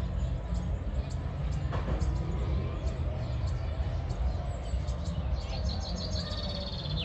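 Steady low rumble of wind on the microphone, with a small bird singing a quick run of high chirps in the last second or two.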